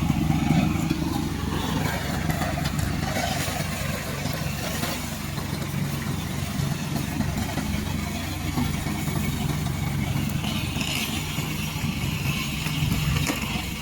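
Remote-control tracked lawn mower's engine running steadily at a constant pitch.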